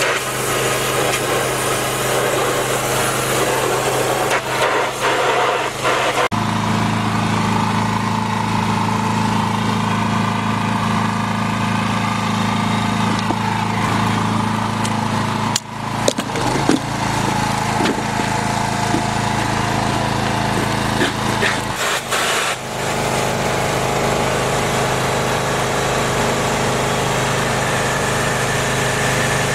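Pressure washer's small engine running steadily while its jet of water hisses against a Willys engine block on an engine stand. The sound changes abruptly a few times.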